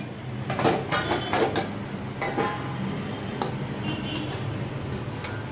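Metal utensils clinking and knocking against a metal steamer pot as a spatula and lid are handled, with a cluster of clinks in the first second and a half and a few more later. A steady low hum runs underneath.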